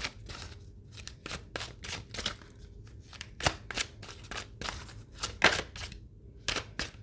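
A deck of oracle cards being shuffled by hand, the cards snapping and slapping together in quick, irregular taps, with one sharper snap about five and a half seconds in.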